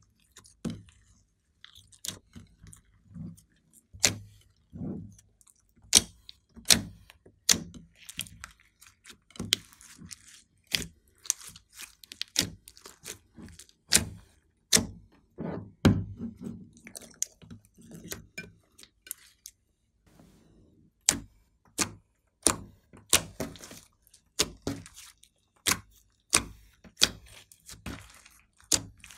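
Glossy slime being kneaded, folded and stretched by hand: sticky squelches with sharp, irregular clicking pops, several a second, and a short lull about twenty seconds in.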